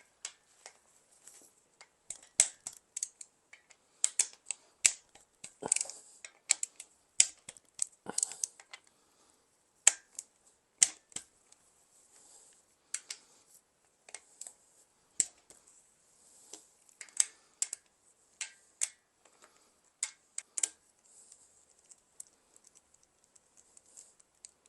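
Hand tools and metal engine parts clicking and tapping at irregular intervals, some in quick runs, as a socket wrench is worked on bolts during an engine teardown.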